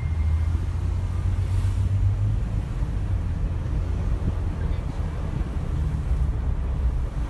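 Car interior noise while driving slowly: a steady low engine and road rumble heard from inside the cabin, a little heavier for the first couple of seconds.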